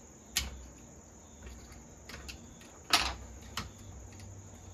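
Clicks and knocks of tools and small parts being handled while a chainsaw is taken apart on a workbench: two sharp knocks, about half a second in and about three seconds in, with a few lighter clicks between and after.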